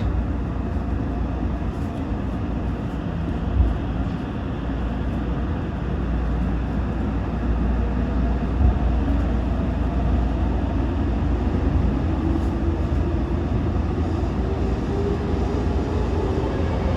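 Toyo Rapid Railway 2000 series electric train running on the rails, heard from inside the car: a steady rumble of wheels and running gear with two single knocks. Through the second half the traction motors' whine climbs slowly in pitch as the train accelerates away from a station.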